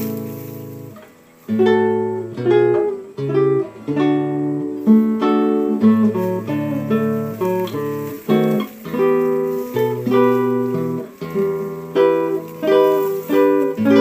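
Background music: acoustic guitar playing plucked chords and single notes, each note ringing and fading before the next, with a short break about a second in.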